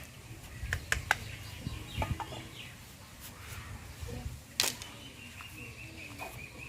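A few sharp knocks and clicks, the loudest about two-thirds of the way through, with faint chicken clucks and bird calls in the background.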